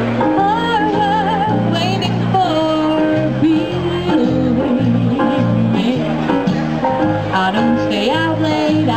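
A woman singing a song with vibrato into a handheld microphone over backing music with a steady bass line.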